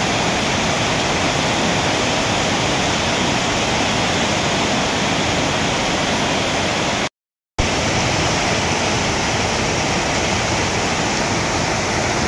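Torrential rain pouring down, with runoff streaming off the roof edges: a steady, loud hiss of water. It cuts out for about half a second around seven seconds in, then goes on as before.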